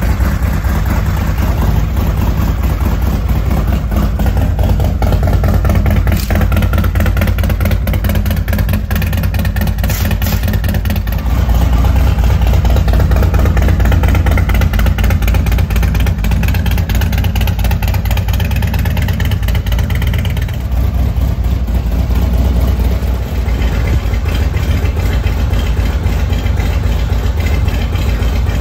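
Harley-Davidson 131 cubic inch Stage 4 V-twin, freshly started, idling through Bassani headers as its Thundermax module runs the initial idle tune. A steady, loud low rumble that swells slightly about 11 seconds in and settles back a little after about 20 seconds.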